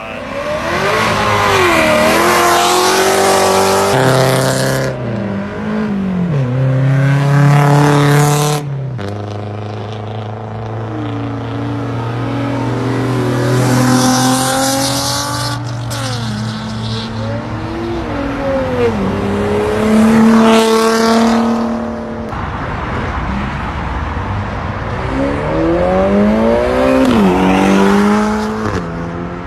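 Cars leaving a car meet one after another, their engines revving hard as they accelerate away. Each engine note climbs and falls, about five times in turn.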